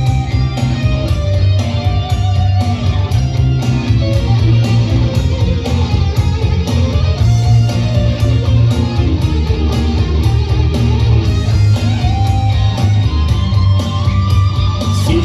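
A rock band playing an instrumental break live, with guitar playing the melody over bass and a steady drum beat.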